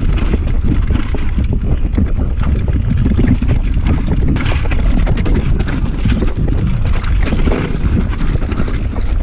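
Wind buffeting the microphone of a mountain biker's body-mounted camera on a fast descent, with the bike's frame and chain rattling and knocking as it rolls over a rocky trail.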